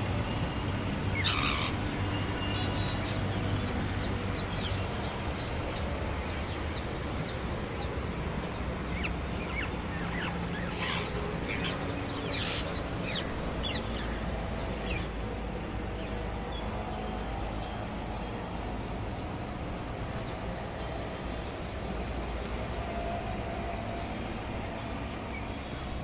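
Steady low rumble of city traffic, with a few short, shrill calls from rose-ringed parakeets: one about a second in and a cluster between about 10 and 15 seconds in.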